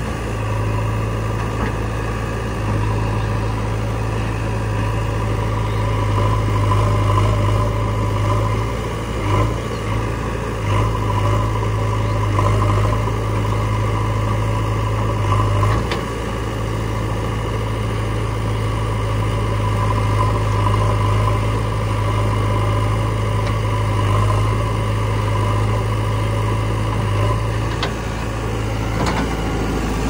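Diesel engine of a JCB 3DX backhoe loader idling steadily, an even low hum.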